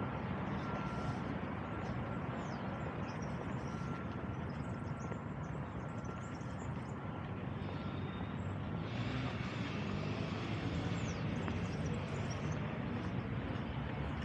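Steady rumble of distant city traffic in the open air. A faint steady whine runs through the first part, scattered faint high chirps come and go, and a brighter hiss rises about nine seconds in.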